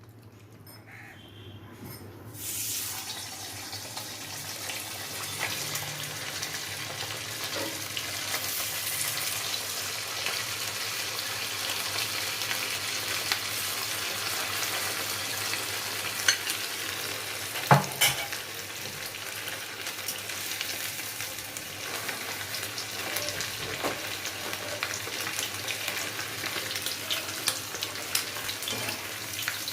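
Marinated chicken pieces, coated in cornflour, flour and egg, sizzling as they deep-fry in hot oil in a kadhai. The sizzle starts about two and a half seconds in as the pieces go into the oil, then carries on as a steady hiss full of small crackles. A single sharp knock comes near the middle.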